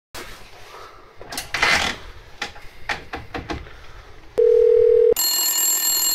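Old shipboard telephone in use: clicks and handling noise, then about a second from the end of the handling a steady tone in the earpiece lasting under a second, followed by a loud buzzing ring for about a second and a half.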